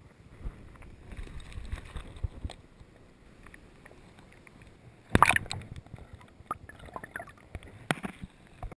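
Water sloshing and gurgling around a GoPro held just under the river's surface as a brown trout is released by hand, muffled through the camera's waterproof housing. A loud splash comes about five seconds in, followed by smaller knocks and splashes.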